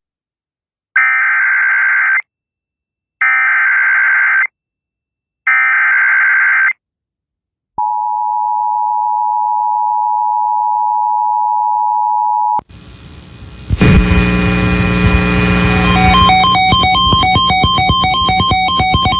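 Emergency Alert System broadcast opening: three bursts of SAME data-header warble, each about a second long, then the two-tone attention signal held steady for about five seconds. Electronic music with a repeating beat follows.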